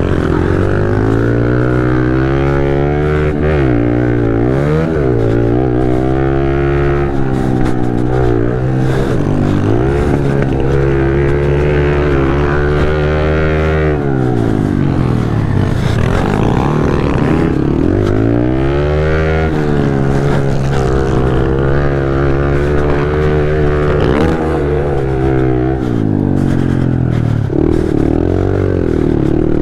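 Pit bike engine, heard close up on board, revving hard under race throttle. Its pitch climbs and falls repeatedly as the rider opens and closes the throttle and works through the gears.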